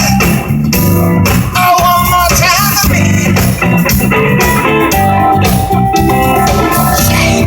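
Blues-rock band music: electric guitar playing bent, sliding notes over bass and drums.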